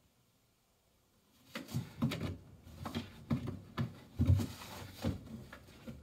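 A fabric storage box on a stone floor knocking and scraping as a cat noses into it and shoves it about: a string of irregular dull knocks and scuffs starting about a second and a half in, the loudest just past the middle.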